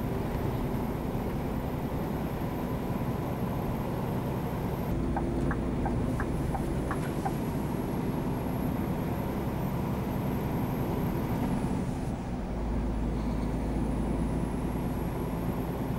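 Scania R440 truck's 13-litre diesel engine running steadily at low road speed, heard from inside the cab. A few faint clicks come between about five and seven seconds in.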